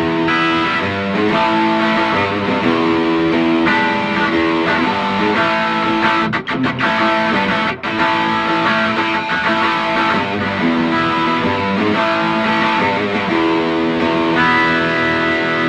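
Electric guitar played through a BOSS SD-1 Super OverDrive pedal: overdriven chords ringing and changing, with a couple of short muted stops about six and eight seconds in.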